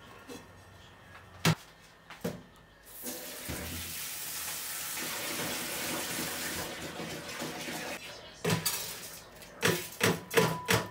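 Two sharp knocks, then a kitchen tap running water into a metal pot in the sink for about five seconds. Near the end the pot and a plastic colander clatter against each other and the sink in a quick series of knocks.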